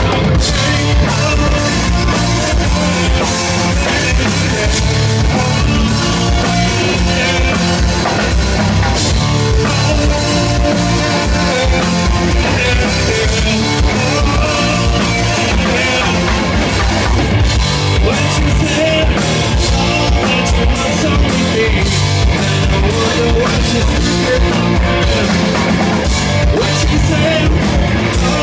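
Live grunge band playing loud, with electric guitar and drum kit, heard from the audience floor.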